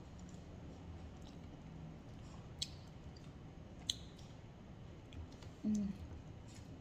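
Quiet eating sounds: a person tearing and handling a piece of toasted flatbread and biting into it, with two sharp clicks, one a little over two and a half seconds in and one about a second later, and a brief low hum as she takes a bite near the end.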